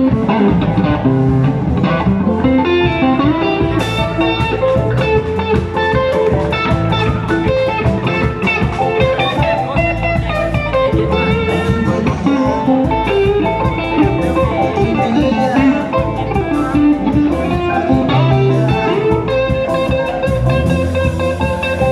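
Live rock band playing, with electric guitars to the fore over a drum kit and keyboard.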